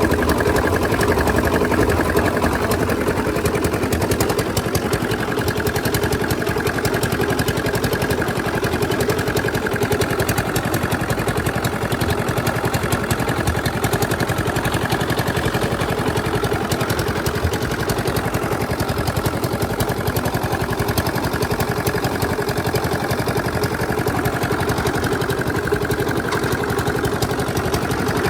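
Engine-driven concrete mixer running steadily, its engine firing in a fast, even clatter.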